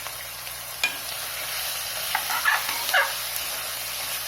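Marinated chicken and onions sizzling in hot oil in a pressure cooker, stirred with a spatula that scrapes and knocks against the pot; the meat is being fried with the onions before the ground masala goes in. A sharp knock comes about a second in, and there is a short run of scraping near the middle.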